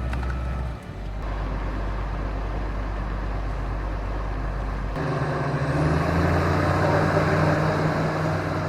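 Heavy diesel engine of an excavator running steadily, then stepping up to higher revs and louder about five seconds in.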